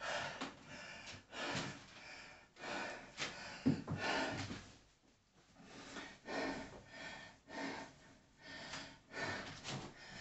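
A man breathing heavily, catching his breath between sets of a workout, in a series of noisy in-and-out breaths with a short pause about five seconds in.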